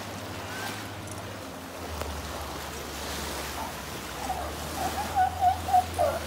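Moving river water and wind, with a steady low hum from a motorboat's engine that drops in pitch about two seconds in. From about four seconds in, a run of short, high calls comes over it; these are the loudest sounds.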